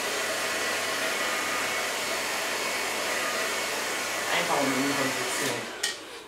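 Handheld hair dryer blowing steadily as short hair is blow-dried, then switched off near the end.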